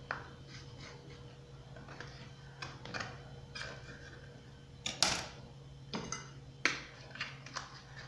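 Knife cutting through a baked pizza in an aluminium baking pan, the blade scraping and knocking against the pan's metal in short, irregular strokes, with the sharpest clink about five seconds in.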